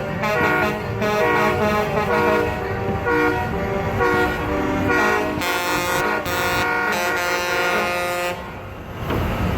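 Many truck air horns blaring together at different pitches over the rumble of truck engines, easing off about eight and a half seconds in.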